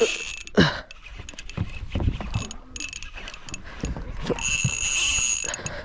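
Shimano Metanium DC baitcasting reel working through a cast and retrieve: a high steady whine as the spool pays out line, heard briefly at the start and again for about a second from about four and a half seconds in, with small clicks from the reel between, over low wind rumble on the microphone.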